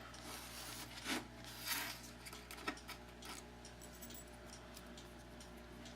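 A few faint, light metal clicks and scrapes as padlock parts and a thin shim are handled, spaced out over the first three seconds, over a steady low hum.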